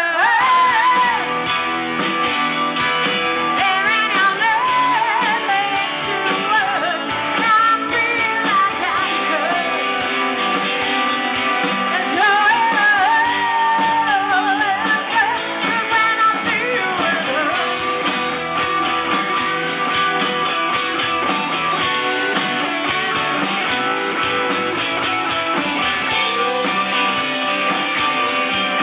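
Live rock band playing: electric guitars, bass, keyboards and drums, heard loud through a PA. A lead melody rises and falls over the first half, then the band settles into a steadier passage.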